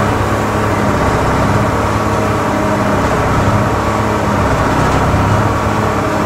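A steady engine drone with a low hum, running on unchanged throughout.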